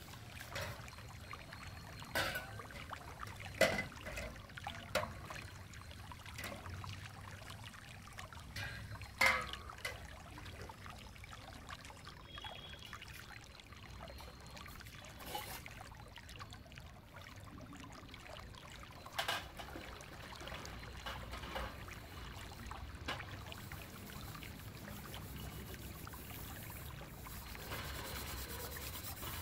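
Stainless steel bowls and pots being handled and washed: sharp metallic clinks every few seconds as steel knocks on steel, over water trickling and sloshing. Toward the end, a steady scraping hiss of steel wool scrubbing a steel bowl in a large steel basin.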